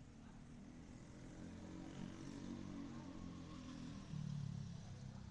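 Faint motor vehicle engine noise, swelling from about two seconds in and loudest just after four seconds.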